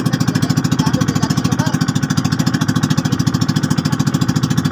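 Pumpboat's small engine running steadily under way, a fast, even pulse of firing strokes.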